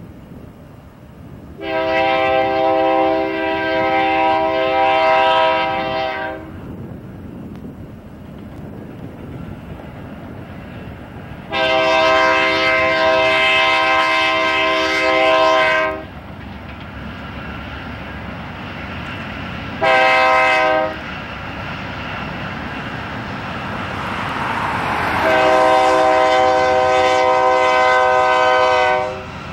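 Air horn of BNSF GE C44-9W locomotive 5495 sounding the grade-crossing signal: two long blasts, a short one and a long one, each a chord of several steady notes. Underneath, the rumble of the approaching train grows louder toward the end.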